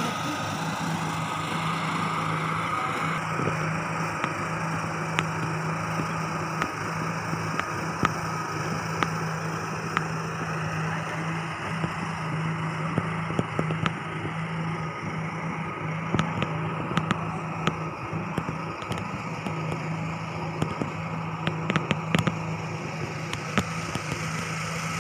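A steady low engine hum, with many short clicks scattered through it, most of them in the second half.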